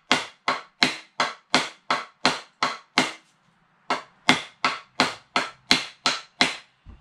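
White nylon hammer tapping the top end of a hickory axe handle that is held head-down, driving the axe head further onto the handle. Steady, even knocks about three a second, with a short pause a little past halfway.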